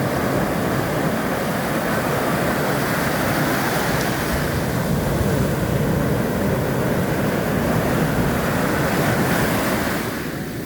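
Ocean surf washing continuously on a shore, a steady rush of breaking waves that eases off a little near the end.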